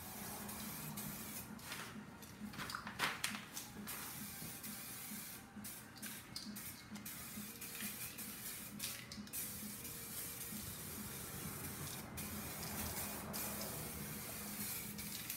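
Spraymax 2K catalysed clear-coat aerosol can hissing as it sprays a wet second coat onto motorcycle fork legs in repeated passes, cutting off briefly between passes.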